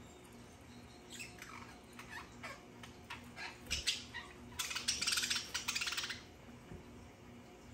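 Budgerigar chatter: scattered short chirps and squawks that build to a dense, buzzy warble about four to six seconds in.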